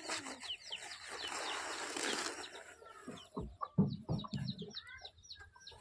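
Banana leaves and a jute sack rustling as a hand lifts them, with birds chirping over and over in short falling notes and a few soft thumps a little past the middle.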